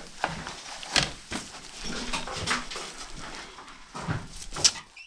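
Scattered knocks and scrapes from a plastic car bumper being handled close to the microphone, with a brief low grunt-like sound about two seconds in.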